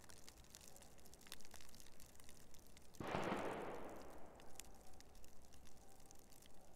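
Faint, scattered ticking of falling snow on dry leaf litter. About three seconds in comes a sudden distant bang whose echo fades over about a second.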